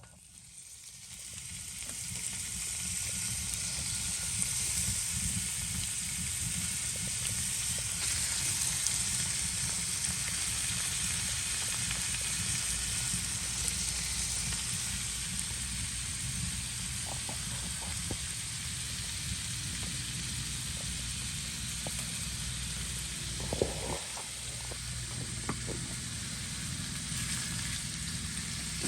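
Food sizzling in a hot frying pan, the sizzle building over the first couple of seconds and then holding steady. A few light clicks of a utensil against the pan come later on.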